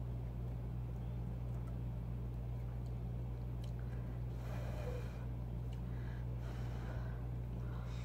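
Alfredo pasta slurped in off a fork: a breathy slurp about halfway through, a weaker one later and another at the very end, after a few faint clicks of the fork. A steady low hum runs underneath throughout.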